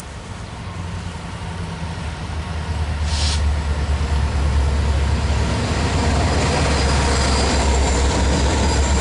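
BNSF diesel-electric freight locomotives approaching and passing. A deep engine rumble grows steadily louder over the first few seconds and then holds, and faint high wheel squeal comes in over the last few seconds as the train takes the curve.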